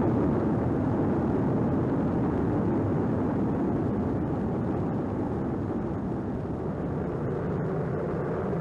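Erupting lava fountain making a steady, deep rushing roar that eases off slightly toward the end.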